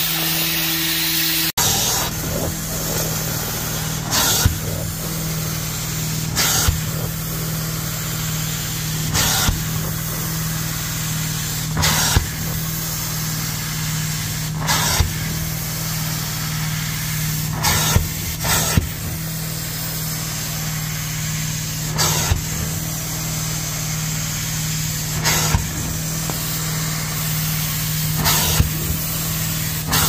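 Hot-water carpet extractor running steadily with a low hum while its stair wand is worked over carpeted stair treads. Short rushing bursts come about every three seconds, one per stroke of the wand.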